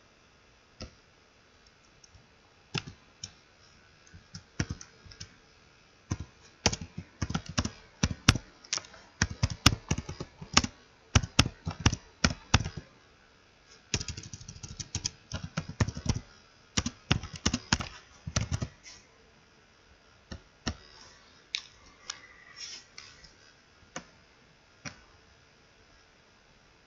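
Typing on a computer keyboard: irregular key clicks, a few at first, then a fast, dense run through the middle, thinning to occasional keystrokes near the end.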